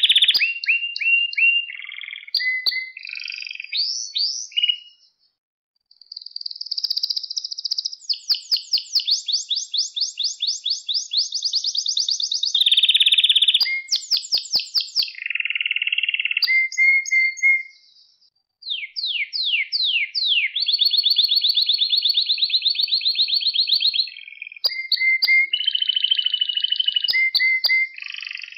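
Male domestic canary singing: long phrases of rapid trills, each a fast run of one repeated note, switching from one pitch to another. The song breaks off briefly twice, about a fifth of the way in and again about two-thirds of the way in.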